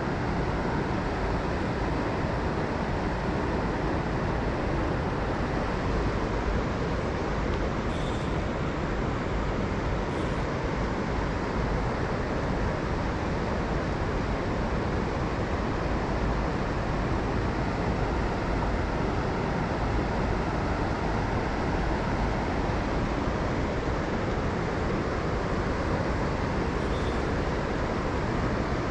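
Steady rush of a river's current, an even noise with no breaks.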